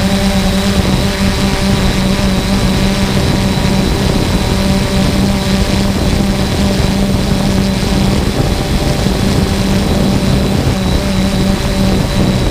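3DR Solo quadcopter's four brushless electric motors and propellers humming steadily in flight, heard from the camera slung under the drone, over a constant noisy rush. The main tone of the hum fades for a few seconds in the middle and then comes back.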